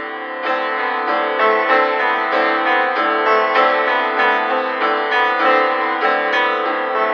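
Background piano music: a steady run of notes.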